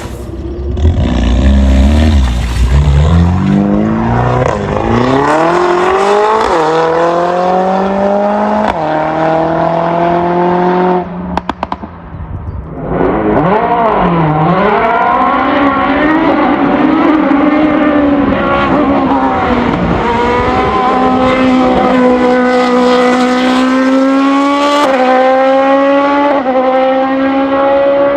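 Race car engine accelerating hard up through the gears, its pitch climbing and dropping back at each upshift. About halfway through, the engine is briefly cut off the throttle, then it picks up again and pulls through several more upshifts.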